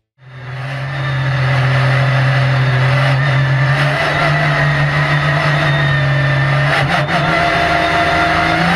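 Porsche 911 GT3 R race car's 4.0-litre flat-six engine heard from inside the cockpit, fading in and running at low, fairly steady revs. The pitch steps up slightly about four seconds in, and a few short clicks come about seven seconds in.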